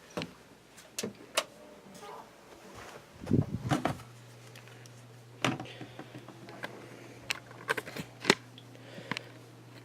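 Scattered clicks and knocks of cables and plugs being handled at the back of a desktop computer, with a busier rattling cluster about three seconds in. A steady low hum starts about four seconds in and keeps going.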